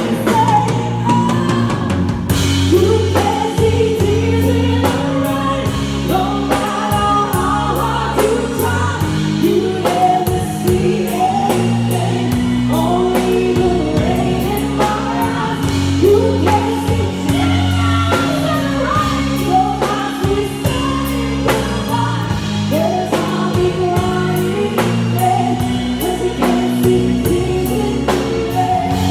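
A woman singing a rock ballad live, backed by a band with electric guitar, bass and drums hitting a steady beat.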